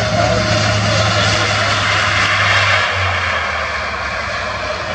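Jet airliner engines running at low power, a steady rush with a low hum that shifts slightly lower about three seconds in.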